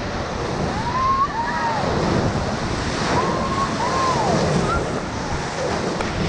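Whitewater of a river rapid rushing steadily around a raft, with wind on the microphone. Two pairs of short rising-and-falling whoops from the rafters ride over it, about a second in and again about three seconds in.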